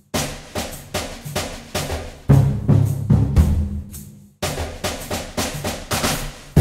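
Drum-driven background music with a steady beat of about three hits a second over a bass line, breaking off briefly about four seconds in before resuming.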